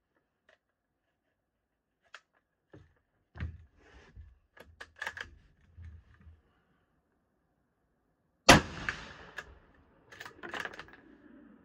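Bolt-action Ruger American Rifle in 5.56 NATO: a few seconds of metallic clicks from handling and working the bolt, then a single loud shot about eight and a half seconds in that echoes for about a second, followed by more bolt clicks as the action is cycled.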